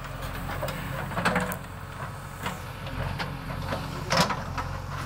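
JCB backhoe loader's diesel engine running steadily as the machine works, with a few sharp knocks and scrapes, the loudest about a second in and again near four seconds.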